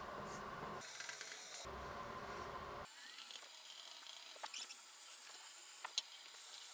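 Chalk scratching and tapping on a blackboard, faint, with a few sharp taps in the second half. Background music plays for about the first three seconds and then stops.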